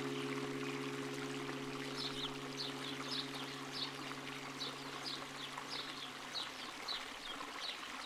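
Trickling, flowing water under a held low music chord that slowly fades away. From about two seconds in, short high chirps repeat two or three times a second.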